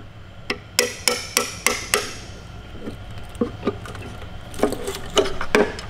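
Small sledgehammer striking a steel chisel wedged in the seam of a cast oil pan, breaking loose a pan glued on with heavy RTV sealant. A quick run of about six blows in the first two seconds, then lighter, scattered strikes.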